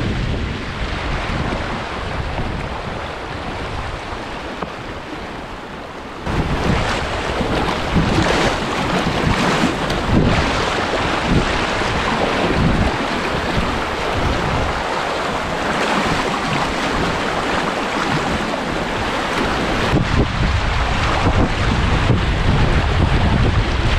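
River water rushing and splashing around a kayak surfing a standing wave in a rapid, with wind noise on the microphone. The water gets suddenly louder about six seconds in.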